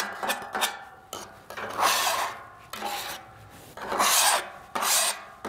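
A metal scraper rasping across a hot steel griddle top in several long strokes, scraping loosened food residue off the cooking surface.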